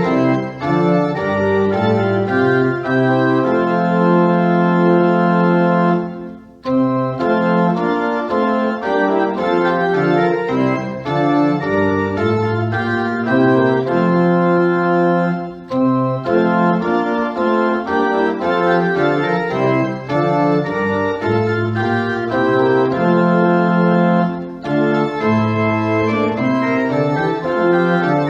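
Organ playing a slow prelude of held chords with a moving bass line, pausing briefly twice between phrases.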